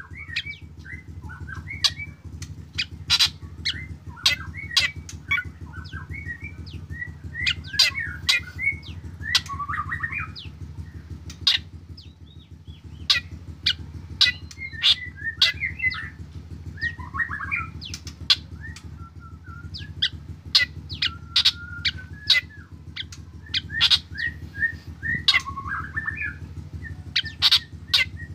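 Black drongo singing vigorously: a fast, varied string of sharp clicking notes mixed with chattering and short slurred whistles, over a steady low hum.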